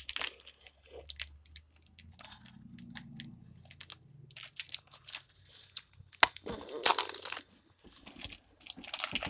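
Foil wrapper of a Pokémon trading-card booster pack crinkling and tearing in the hands as it is opened, an irregular crackle with a few louder crackles a little past the middle.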